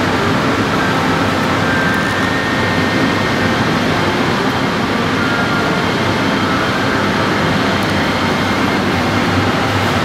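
Steady background rumble and hiss, even in level, with no distinct events.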